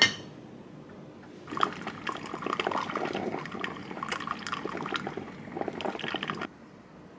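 A ceramic lid clinks once at the very start. About a second and a half later a thin stream of coffee pours into a cup for about five seconds, then cuts off suddenly.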